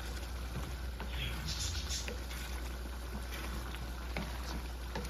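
Pork igado sauce simmering and bubbling in a wok while a wooden spatula stirs it, with scattered light scrapes and clicks against the pan.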